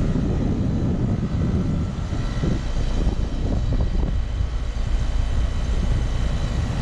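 2022 Trane XR14 5-ton heat pump outdoor unit running steadily in heat mode, its fan and compressor making a continuous low drone with faint high steady tones; the unit is working well.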